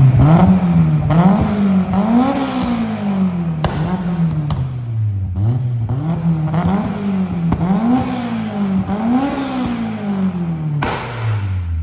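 Honda K20 four-cylinder engine running through a new aftermarket exhaust, revving up and down over and over, its pitch rising and falling about once a second, then dropping away near the end.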